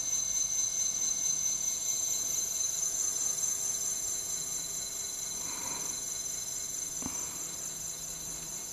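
Leaf 12-inch 24V 250W brushless gearless rear hub motor running under its controller, giving a steady high-pitched electric whine with a faint hum beneath. A short knock comes about seven seconds in.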